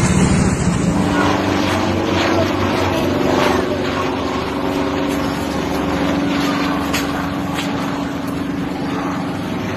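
A steady engine-like drone with a constant low hum running under it.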